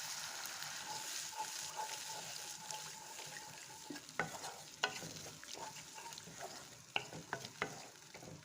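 Water-thinned sauce boiling and sizzling in a pan, the hiss slowly fading, with a spoon clicking against the pan several times from about four seconds in.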